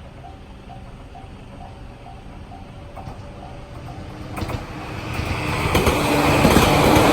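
Level crossing's electronic warning bell, the JR standard tone, ringing about twice a second. From about four seconds in, an approaching train grows steadily louder until its rail noise drowns out the bell.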